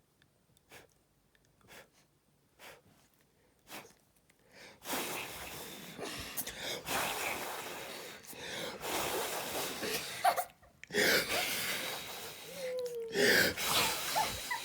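A person blowing air: a few short faint puffs, then long loud breathy blowing from about five seconds in, with a brief break near the end. A couple of short squeaky sliding sounds come near the end.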